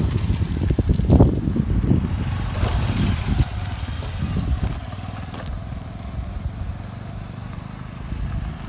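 Low rumble of a moving vehicle heard from on board, heavier in the first few seconds and then steadier.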